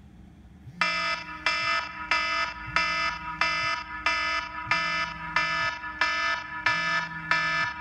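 iPhone alarm ringing: a bright chiming tone repeating about every two-thirds of a second, starting about a second in, with a low buzz pulsing under it about every two seconds.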